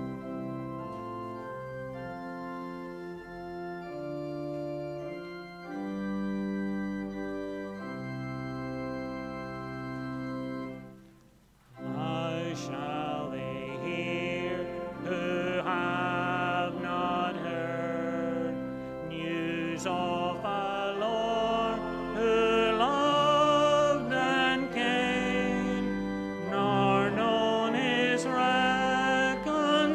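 Church organ playing a hymn introduction in sustained chords, which stops briefly about eleven seconds in; from about twelve seconds a singing voice with vibrato comes in over the organ accompaniment for the first verse.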